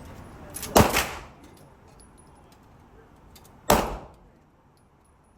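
Two gunshots about three seconds apart, each a sharp crack with a short echoing tail, fired indoors on a shooting range.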